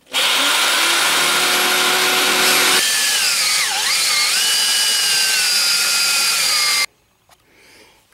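Electric drills cutting sheet aluminum. First a corded drill with a sheet-metal cutting head runs steadily. About three seconds in, a cordless drill driving a hole saw takes over, its pitch dipping sharply as it loads and then sinking slowly. The sound cuts off suddenly near the end.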